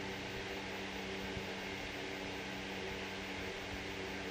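Steady electrical hum with an even hiss, holding a low pitch with a few overtones and never changing.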